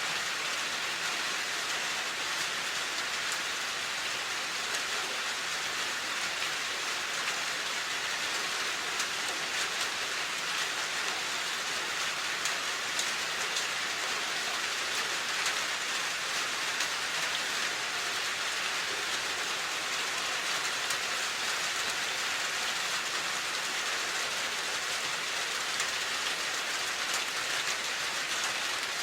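Steady rain falling and pattering on surfaces, an even hiss with no let-up or change.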